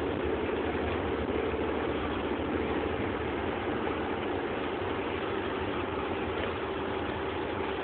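Steady cab noise of a Mercedes-Benz Sprinter van cruising at motorway speed: a constant engine drone and tyre and wind noise, with an even hum running under it.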